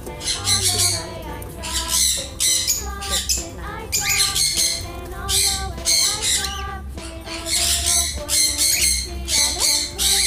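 Cockatiels squawking over and over, harsh screeching calls about once or twice a second, over background music.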